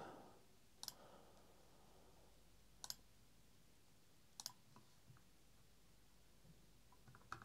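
Four faint, sharp clicks of a computer's pointing-device button, most of them doubled, spaced about one and a half to two seconds apart over a near-silent room tone. They are the clicks that place points while drawing a spline in a CAD sketch.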